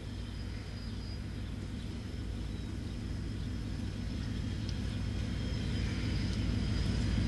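KiwiRail DFB-class diesel-electric locomotive approaching, its low engine rumble growing steadily louder.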